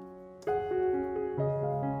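Background piano music: a slow melody of held notes. One set of notes fades out and a new chord is struck about half a second in.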